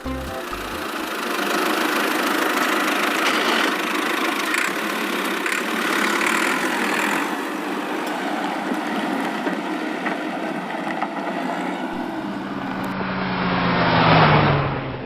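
A vehicle engine running steadily, swelling in pitch and loudness shortly before the end.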